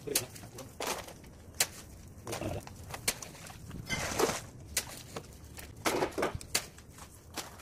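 Muddy water being scooped and splashed out of a flooded pit with a hand scoop, with a burst of splashing about four seconds in and another around six seconds. Irregular sharp clicks and knocks run between them.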